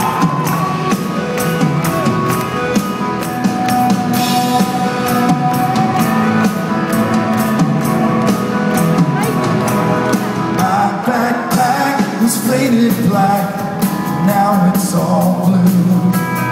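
Live rock band playing the instrumental opening of a song, with electric guitar, upright double bass and drum kit, recorded from within the crowd in a concert hall.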